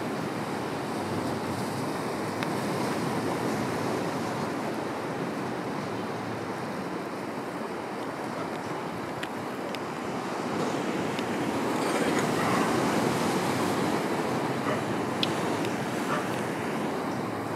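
Sea surf washing onto a beach, a steady rush of breaking waves that swells louder about twelve seconds in, with some wind on the microphone.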